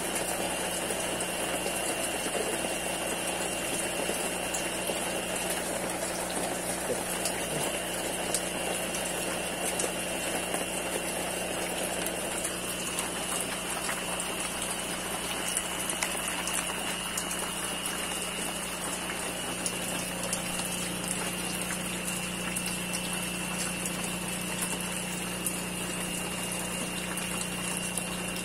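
Water pouring from a pipe into a rack of aquarium tanks and splashing, over the steady hum of an electric water pump. The sound is even throughout, with the splashing a little fuller in the first dozen seconds.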